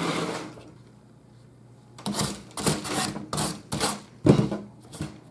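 Handling of a painted wooden shelf frame with a chicken-wire backing: a brief shuffling slide as it is shifted, then from about two seconds in a quick, irregular run of about ten short scrapes and taps of wood and wire against the table.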